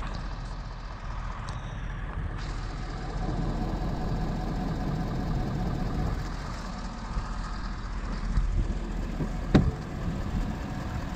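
Steady outdoor background rumble of vehicle traffic, with a single sharp knock near the end.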